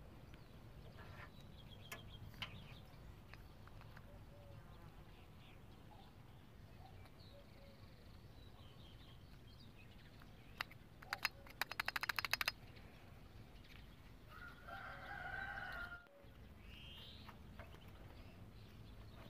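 A rooster crows once about fifteen seconds in, a long call. Earlier, around eleven seconds in, comes a rapid run of sharp clicks lasting about two seconds, the loudest sound here.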